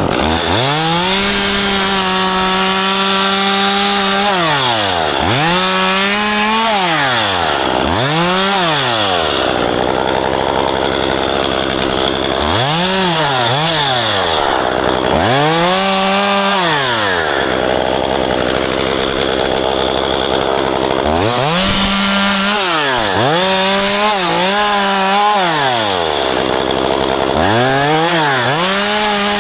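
Chainsaw engine revving up and dropping back to idle again and again, roughly nine times, as it cuts branches while pruning a ficus tree; some revs are held for a few seconds, others are short blips.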